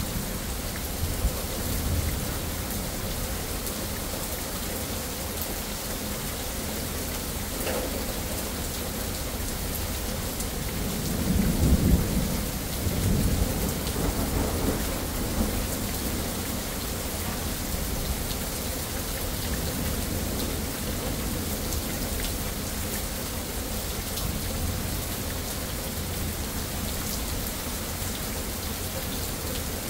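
Steady rain pouring onto pavement and foliage during a thunderstorm. A low rumble of thunder swells and rolls for a few seconds near the middle.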